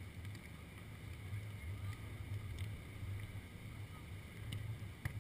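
Wind rumbling on the microphone of a beach camera: a steady low buffeting rumble, with one sharp tap near the end.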